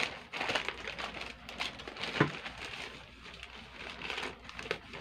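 Plastic courier mailer bag crinkling as it is handled and cut open with scissors, with a sharper snap about two seconds in.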